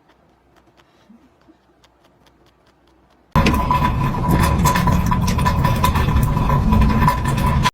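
Near quiet, then about three seconds in a loud, steady mechanical running noise with a steady high tone in it starts suddenly, and it cuts off abruptly at the end.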